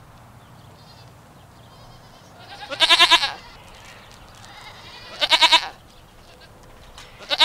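Goats bleating: two quavering bleats a couple of seconds apart, with a third starting at the very end.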